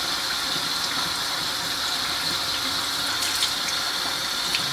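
Tap water running steadily into a sink, the stream splashing over hands holding a wet makeup sponge and a round solid soap cleanser.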